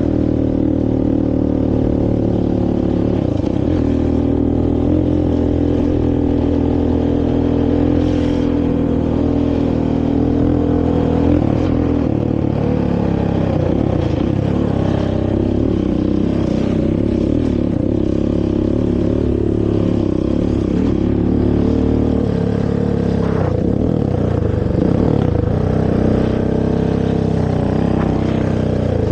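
Honda TRX450R quad's single-cylinder four-stroke engine through its stock exhaust, running at a steady pitch for the first dozen seconds, then rising and falling with the throttle.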